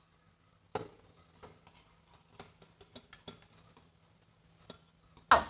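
Slime being stirred in a bowl: scattered light clicks and taps of the stirring utensil against the container, with one louder knock near the end.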